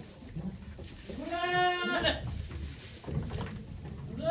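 A goat bleating: one long, held bleat about a second in, and a second bleat starting near the end.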